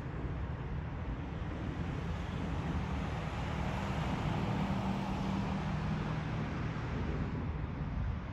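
Jet airliner's engines passing overhead: a steady rushing drone that swells through the middle, with a low hum under it, then starts to fade near the end.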